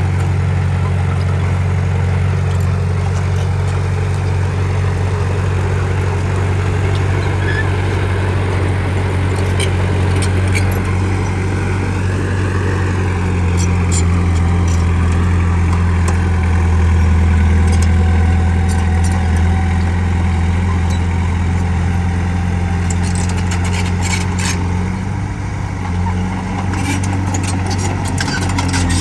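Bulldozer's diesel engine running steadily under work, its low hum swelling a little louder in the middle. A run of sharp metallic clanks comes in the last few seconds.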